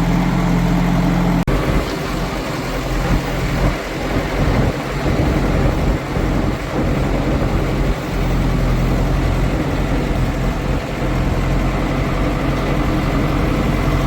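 Diesel engine of heavy farm or earthmoving machinery running. The sound breaks off abruptly about one and a half seconds in; the engine note then wavers unevenly for several seconds before settling into a steady run.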